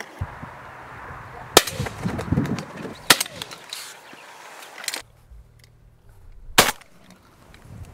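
Three shots from a Browning Maxus semi-automatic shotgun, fired at incoming woodpigeons. The first two come about a second and a half apart and the third a few seconds later.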